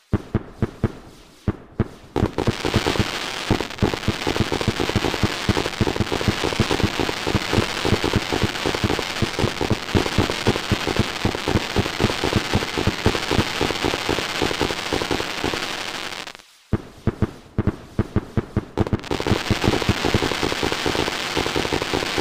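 Fireworks going off in a dense, rapid barrage of sharp pops over continuous crackling. It starts with scattered bangs, thickens about two seconds in, and dips briefly about sixteen seconds in before resuming.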